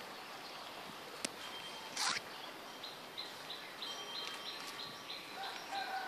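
Birds calling over a steady outdoor hiss. From about halfway, one bird repeats a short high note about three times a second. A sharp click comes a little past one second, and a short harsh burst, the loudest sound, about two seconds in.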